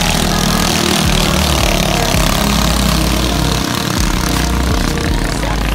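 Engines of small motorized racing boats running at speed across the water: a loud, steady engine noise.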